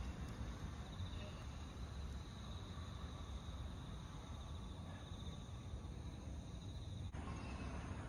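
Singing insects chirring steadily in a high, finely pulsing trill over a low rumble. The trill stops at a cut about seven seconds in.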